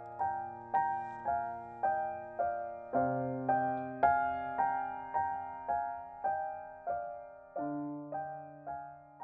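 Gentle background piano music: soft notes struck about twice a second over held low chords, slowing and fading out near the end.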